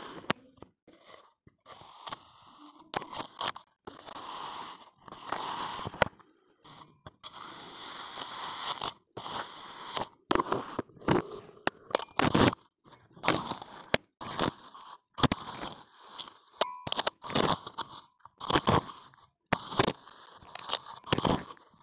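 Kinetic sand being worked by hand: a long run of irregular crunches and gritty scrapes, coming louder and closer together in the second half.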